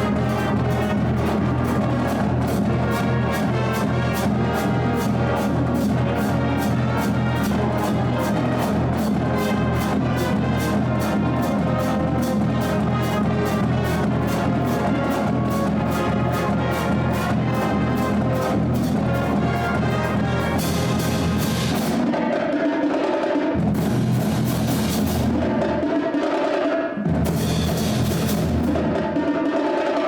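Music with a steady, driving beat, with percussion and brass. In the last third the bass cuts out briefly twice.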